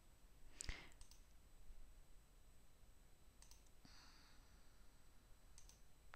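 Near silence broken by a few soft clicks of a computer mouse, the loudest about a second in.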